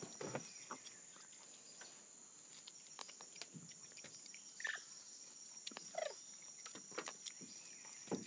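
A woolly monkey eating fruit close by: soft chewing and smacking clicks at an uneven pace, with a couple of short squeaks around the middle. A steady high-pitched insect drone runs underneath.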